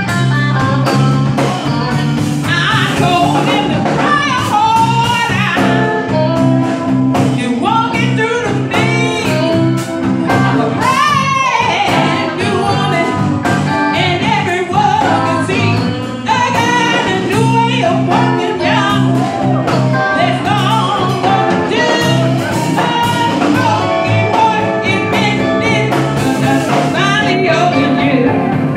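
Live band music: electric bass guitar and drum kit with a lead melody line over them, playing steadily without a break.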